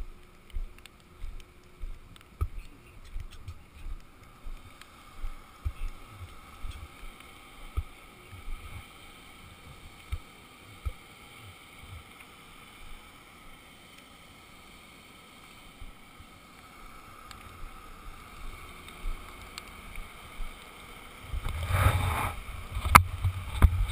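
Footsteps thudding through a body-worn action camera, about two a second, over a faint steady hum. They stop for a few seconds, then go on more faintly, and near the end a loud rumbling rush hits the microphone, with a sharp click.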